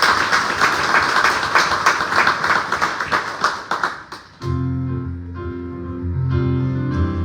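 A crowd claps and applauds for about four seconds. The applause stops, and a keyboard begins playing held chords.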